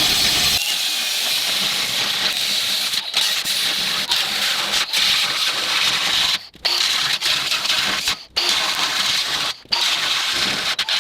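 Cordless angle grinder's cutting wheel slicing through the steel shell of a well pressure tank: a steady high-pitched cutting noise, broken by three brief gaps in the second half.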